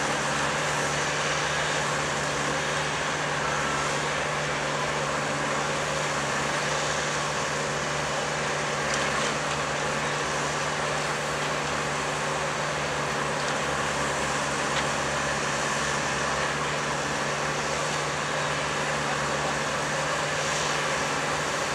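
An engine running steadily at a constant speed, with an unchanging hum.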